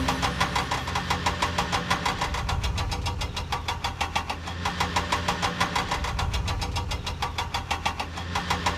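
Engine running with a rapid, even knocking, several beats a second, over a steady low hum.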